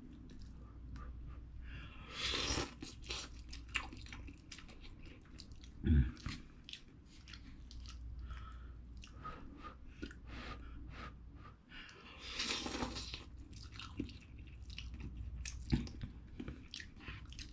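A person eating cup ramen noodles with chopsticks close to the microphone: wet chewing and mouth clicks, with two longer slurps about two and twelve seconds in. A low thump about six seconds in is the loudest sound.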